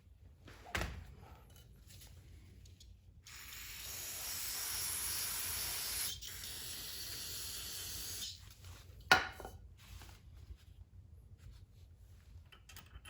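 Aerosol brake cleaner spraying in a hiss of about five seconds, starting about three seconds in and broken briefly a little past halfway. A light knock comes near the start, and a sharp click about nine seconds in.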